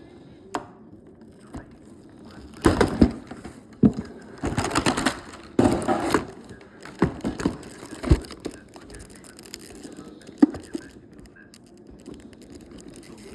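Plastic and cardboard toy packaging being worked open by hand: bunches of crackling and crunching with sharp clicks, busiest in the middle few seconds, then a single click later on.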